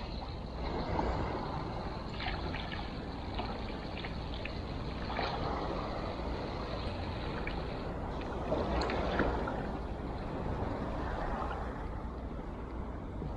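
Small waves lapping and sloshing at the water's edge, swelling up a few times.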